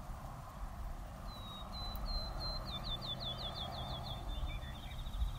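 A songbird singing one song: a few thin level whistles, then a run of about eight quick down-slurred notes, then a fast trill near the end. It sounds over a steady low background rumble.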